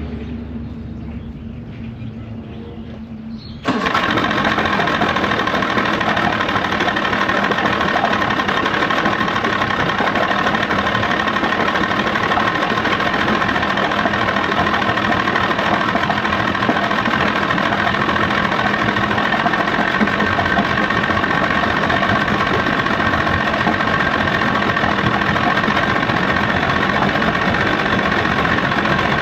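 Outboard motor running steadily at an even speed, cutting in abruptly about four seconds in after a quieter low hum.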